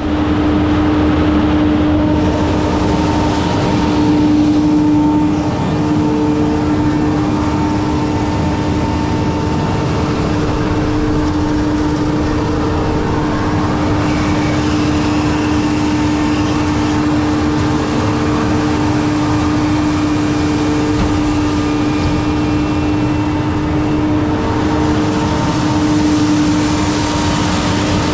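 Cotton stripper running steadily under harvest load, a loud steady drone with a constant humming tone over the engine noise.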